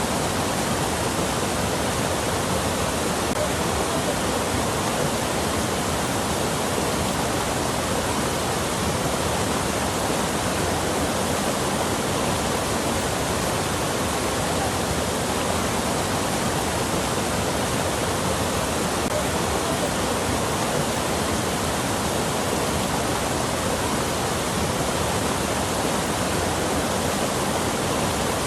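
Steady rushing water, an even, unbroken wash of noise with no splashes or changes.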